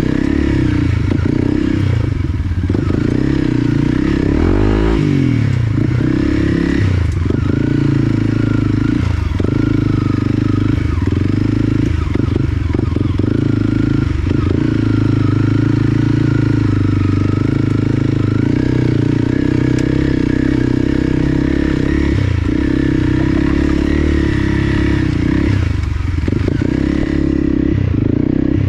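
Dual-sport motorcycle engine running under load off-road, its revs rising and falling with the throttle, with occasional knocks from the bike over rough ground.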